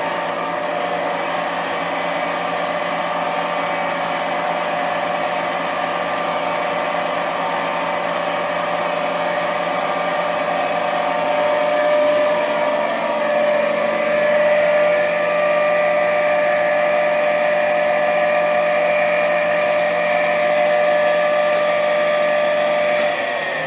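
Hammond CBW-6 chip breaker and cup wheel grinder running forward: its 1 HP three-phase main motor turns the wheel spindles at both ends and gives a steady whine with several held tones. Near the end it is switched off and its pitch starts to fall as it slows.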